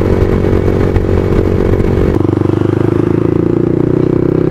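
Yamaha MT-15 single-cylinder engine with an aftermarket exhaust, running at highway speed with heavy wind rumble on the microphone. About two seconds in, the wind rumble drops away and the engine note changes as the bike slows down and shifts to a lower gear. The bike is running on the last of its fuel.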